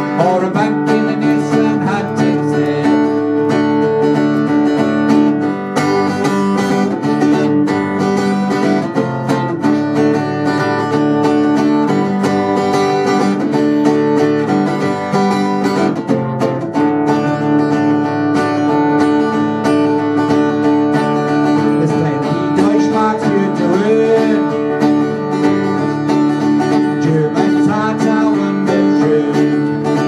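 Two acoustic guitars playing a song together, strummed chords ringing on through the passage.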